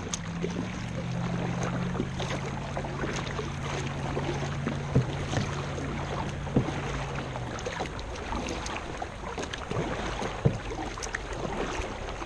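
Kayak paddling: paddle strokes in the water over a steady wash, with a few sharp knocks. A low steady hum runs underneath and stops about seven and a half seconds in.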